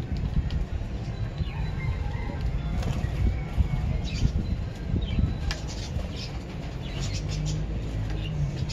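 Lovebirds giving short, high chirps and squeaks now and then over a steady low rumble.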